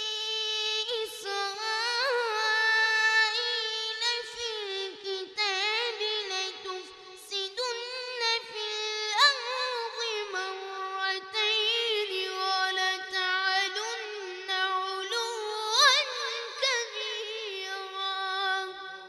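Melodic Quran recitation by a single high-pitched voice, with long held notes ornamented by rapid pitch turns and brief pauses for breath. The voice trails off near the end.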